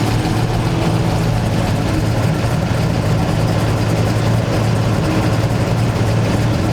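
Car V8 engine idling steadily, a low even tone with no revving.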